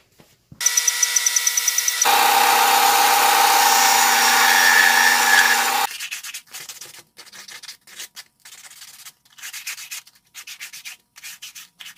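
An electric power tool runs at a steady pitch for about five seconds, gets louder and fuller about two seconds in, then stops suddenly. After it, a white PVC pipe fitting is sanded by hand with sandpaper in a string of short, irregular scraping strokes.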